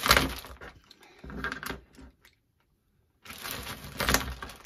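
Clear plastic zip bag crinkling and rustling in the hands as it is opened and handled, in irregular bursts. About two seconds in, the sound cuts out completely for around a second, then the rustling resumes.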